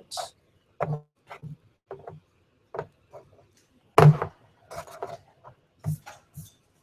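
3D-printed figures being picked up and set down on a tabletop: a series of short, irregular knocks and taps, the loudest about four seconds in.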